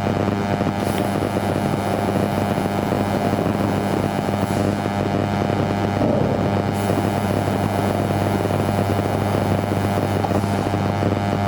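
Laser pipe-cutting machine running as it cuts a titanium exhaust pipe: a steady mechanical hum with a constant low drone.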